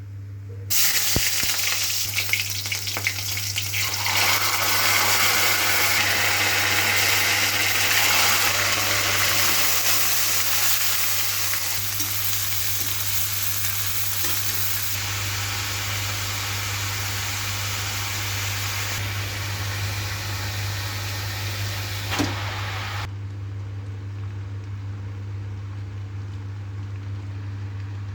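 Food sizzling as it is stir-fried in a hot pan. The sizzle starts abruptly about a second in and cuts off about 23 seconds in, leaving a steady low hum.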